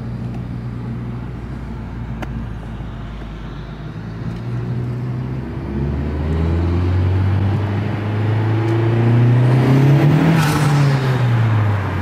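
Honda Civic Type R's turbocharged four-cylinder heard from inside the cabin while driving, its engine note climbing steadily from about halfway through to a peak near the end, then easing off. A brief rushing whoosh comes at the peak.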